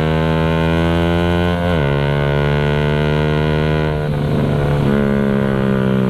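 Suzuki Raider 150 carb's single-cylinder four-stroke engine running loud through an aftermarket Creed open exhaust while riding, a steady droning note. The pitch drops sharply once just under two seconds in, then holds steady again.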